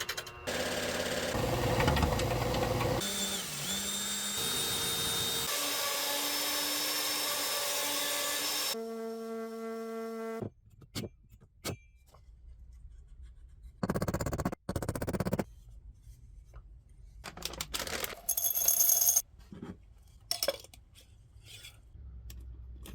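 Power tools cutting and shaping wood in short clips that change every couple of seconds, some with a steady whine. After about ten seconds the tools stop, leaving quieter scattered clicks and knocks, with two short louder bursts of tool noise.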